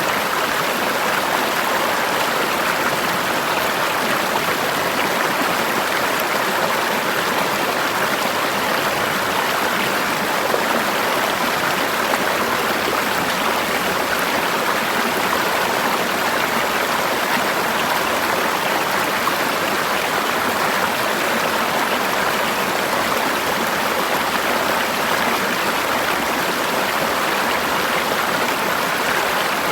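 Forest river flowing over rocks: a steady, even rush of running water.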